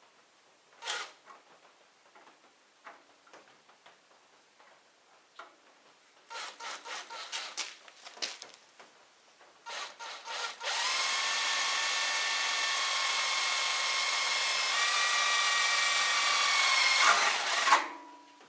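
Handheld power drill: a few short stop-start bursts, then a steady run of about seven seconds with a motor whine that steps slightly in pitch midway, stopping sharply near the end.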